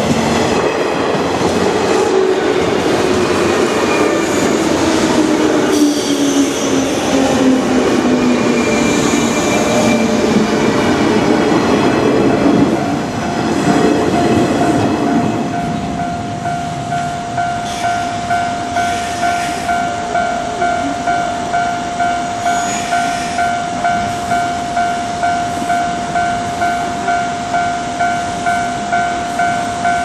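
A JR West 201 series electric train runs past over the rails, its wheels clattering, with a whine that falls in pitch. The train noise fades after about fifteen seconds, leaving the level crossing's electronic warning bell ringing in a steady, evenly repeating ding.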